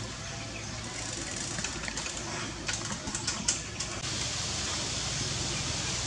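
Steady outdoor background hiss, with a run of small sharp clicks and crackles between about one and a half and four seconds in. The hiss gets louder at a cut about four seconds in.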